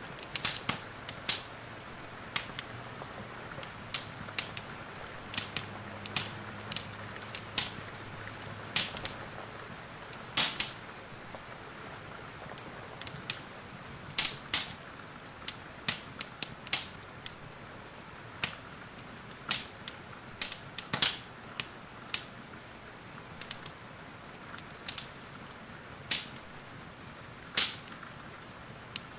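Wood fire in a fireplace crackling with sharp, irregular pops, over a steady hiss of rain.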